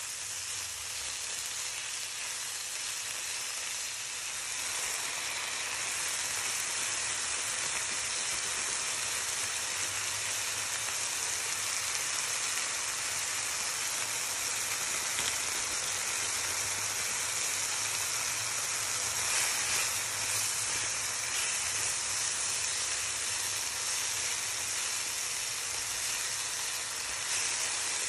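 Diced chicken and vegetables sizzling as they fry in oil in a pan, a steady hiss that grows a little louder about five seconds in.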